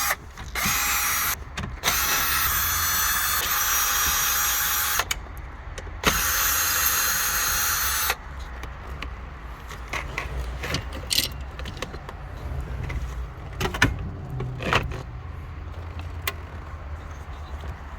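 Power drill-driver running in four bursts over the first eight seconds, with a steady whine, backing out the screws that hold the radio. Then quieter clicks and knocks of parts being handled.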